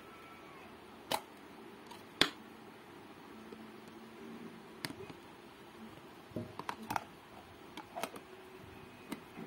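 Plastic lunch-box containers and lids clicking and knocking as they are handled and set down: scattered sharp clacks, the loudest about two seconds in, and a quick run of clicks around six to seven seconds in.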